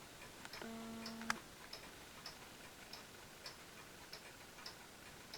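Mechanical wall clocks ticking faintly and steadily, roughly one tick every half second or so. About a second in, a short steady low hum sounds and ends in a sharper click.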